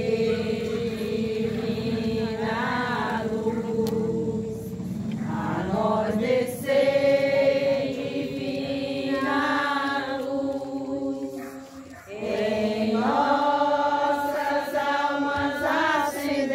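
A small group of women singing a hymn together to invoke the Holy Spirit, in long held notes, with breaks between phrases about six and twelve seconds in.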